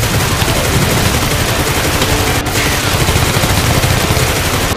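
Rapid automatic gunfire, one continuous stream of shots: a gunfire sound effect laid over a toy foam-dart blaster being fired.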